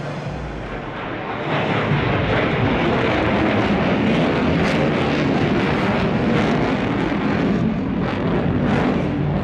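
Jet noise from an F-15SG fighter's twin engines as it flies past: a loud, steady noise that swells about a second and a half in and then holds.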